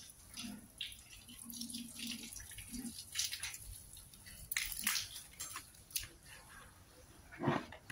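Water dripping and splashing irregularly onto a wet tiled floor from a freshly hosed rug, with a few sharper splashes about halfway through and near the end.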